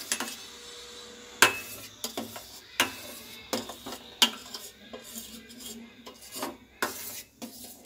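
Steel spoon scraping and knocking against the inside of a stainless steel pot in irregular strokes, as milk curdled with lemon juice is stirred until the chhena separates from the whey.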